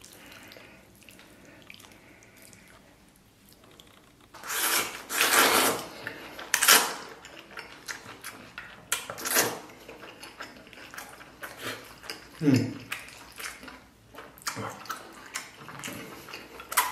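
Close-up eating sounds: a few loud wet slurps about five seconds in, then chewing and wooden chopsticks clicking against a stainless steel bowl near the end.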